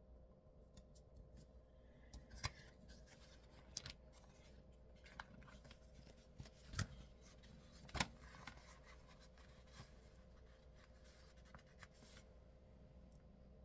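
Faint handling of paper planner pages and sticker sheets: scattered light rustles and taps, with sharper clicks about two and a half, four, seven and eight seconds in, the one at eight seconds the loudest.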